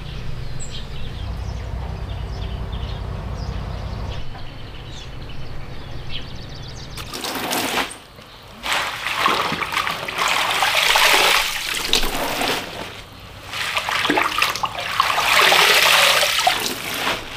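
Water pouring and splashing into a plastic basin as spinach leaves are washed, coming in long rushing surges with brief breaks. A low steady hum runs underneath for the first several seconds before the water starts.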